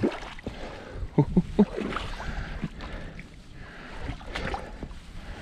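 Scattered knocks and creaks from someone moving about on an unsteady footing, with a quick run of short knocks a little over a second in.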